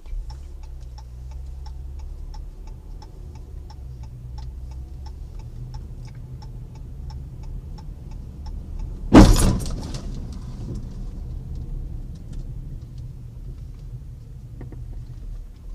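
Car's turn-signal indicator ticking steadily over the low rumble of the engine and tyres heard inside the cabin as the car pulls away. The ticking stops about eight seconds in, and a sudden loud bang follows about a second later.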